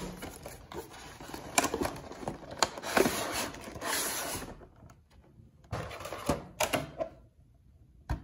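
Rustling and clicking of cardboard and plastic packaging as a Pokémon TCG Celebrations Charizard box is opened and handled. The handling noise is busiest in the first half, thins to a few clicks, and goes nearly quiet near the end.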